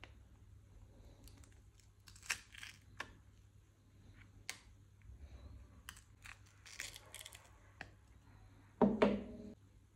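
Thin screwdriver prying at the glued seam of a small plastic card-shaped device: scattered scrapes, clicks and crackles as the glue gives, with a louder, pitched creak about nine seconds in.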